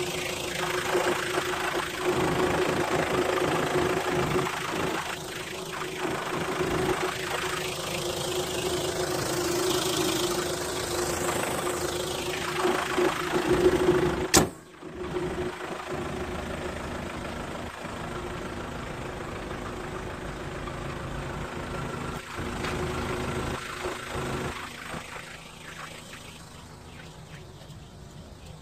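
Hyundai Terracan's 2.5-litre TCI turbodiesel four-cylinder idling steadily, heard with the hood open. A single sharp bang comes about halfway through; after it the engine sounds quieter, and fainter still near the end.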